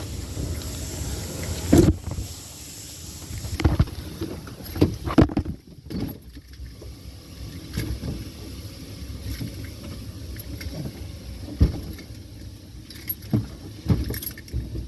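An Oldsmobile Bravada burning where its 4.3 L engine has just blown apart: a steady rushing noise with scattered knocks and pops, dropping off about five seconds in.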